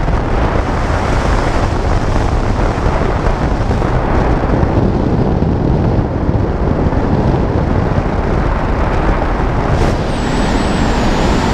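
Steady, loud wind noise buffeting the camera microphone during a tandem parachute canopy descent, with a faint high whistle near the end.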